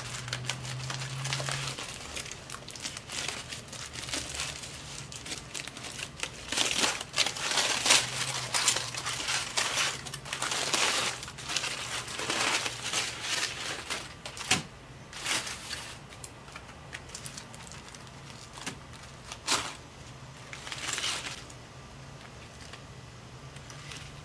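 Aluminium foil crinkling and crackling as hands unwrap a smoked brisket, in irregular bursts that are busiest in the middle and thin out to a few sharp crackles near the end.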